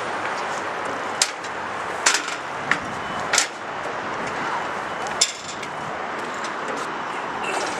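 Steady outdoor background noise with a handful of sharp, short clicks and knocks scattered through it, about five in all.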